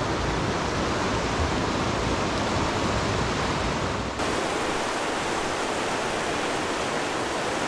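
Steady rush of a fast-flowing river. About four seconds in the sound changes abruptly, becoming brighter with less low rumble.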